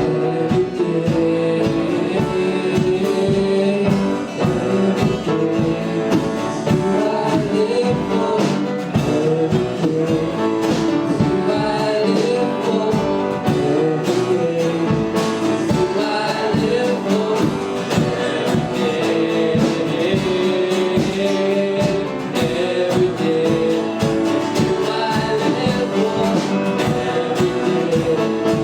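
Worship song: singing over band accompaniment with guitar and a steady beat.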